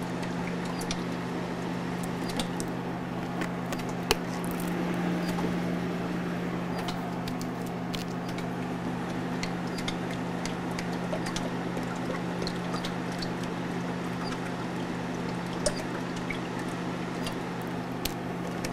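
Piña colada mix being poured from an upturned plastic bottle into the bowl of a BUNN slush machine. Underneath is the machine's steady low hum. Scattered small clicks and taps come through, the sharpest about four seconds in and again near the end.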